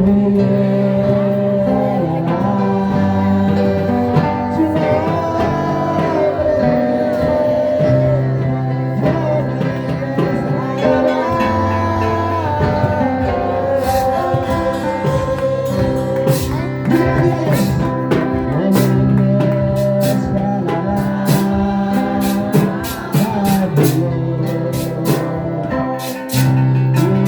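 Music with a singing voice over guitar, a steady bass line and a beat.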